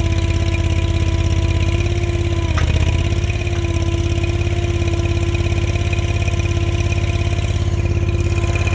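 Honda-powered stand-on skid steer engine running steadily at a constant speed, with a brief knock about two and a half seconds in.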